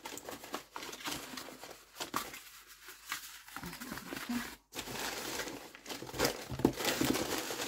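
Corrugated cardboard packing rustling, scraping and crinkling as it is handled and pulled about, with short knocks throughout and busier handling in the second half.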